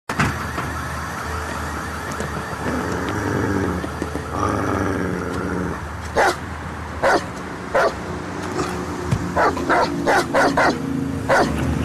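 German shepherd barking: a series of short, sharp barks starting about six seconds in and coming faster toward the end, over the steady rumble of a running vehicle.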